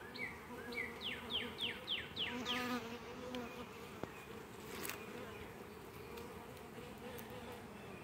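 Honey bees buzzing at an open hive, a steady hum. Over the first three seconds a run of short, high, falling chirps sounds over it.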